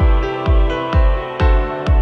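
Background music with a steady low beat, about two thumps a second, under held chords.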